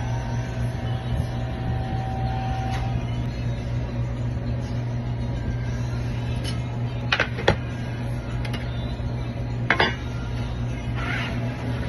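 A few sharp metallic clicks and knocks from handling the drive-through window lock hardware and tools, over a steady low hum.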